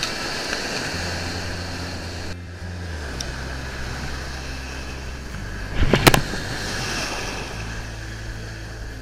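Surf breaking and washing up the sand, with wind on the microphone making a steady low rumble. A sharp knock sounds about six seconds in.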